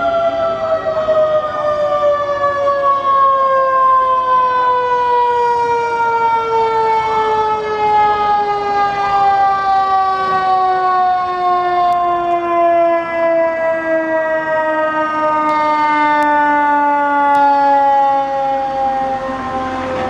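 Fire engine's mechanical siren winding down, its pitch falling slowly and steadily after a brief wind-up.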